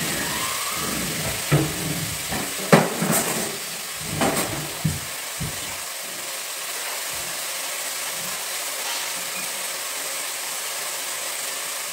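Food sizzling steadily in a pot on a gas stove while it is stirred, with a handful of sharp clinks and knocks of a spoon and jar against the pots in the first five seconds.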